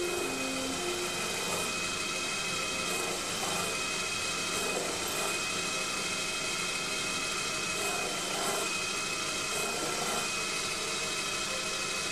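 Proxxon PD 250/e lathe running steadily with a carbide insert boring bar cutting hardened steel inside the bore of a gear: a steady motor whine with a continuous cutting hiss.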